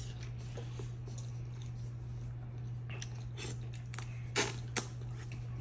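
Boy eating spaghetti with a fork: quiet chewing with small mouth and fork clicks, two sharper clicks about four and a half seconds in. A steady low hum runs underneath.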